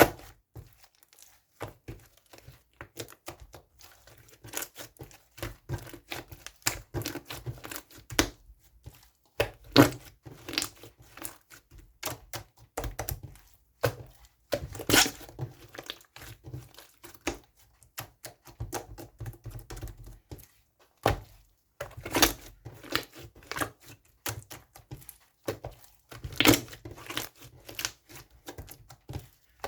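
Slime being pressed and poked by hand, popping trapped air bubbles: an irregular run of crackling pops and clicks, with a few louder pops about 10, 15, 22 and 26 seconds in.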